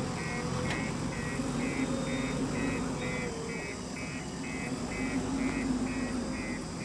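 JCB 3DX backhoe loader's diesel engine running steadily, with its reversing alarm beeping about twice a second.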